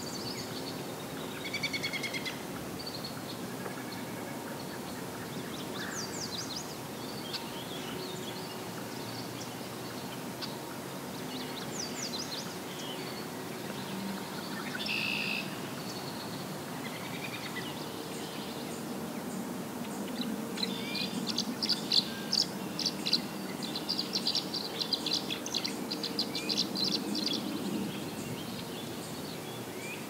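Several wild birds singing and calling over a steady low background, with scattered chirps and whistles. In the second half comes a long run of rapid, repeated high notes, the loudest part.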